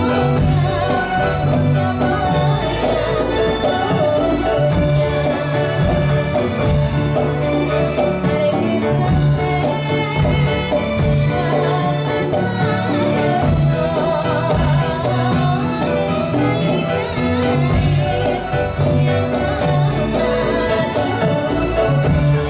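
Dolalak dance accompaniment: traditional Javanese folk music played continuously, with regular drumming, jingling percussion and sustained melody, and a singer's voice.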